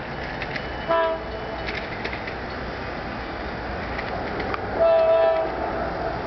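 Air horn of the lead diesel locomotive on an approaching CSX intermodal freight train, sounding twice: a short blast about a second in and a longer blast about five seconds in, each a chord of several tones. Steady background noise runs between the blasts.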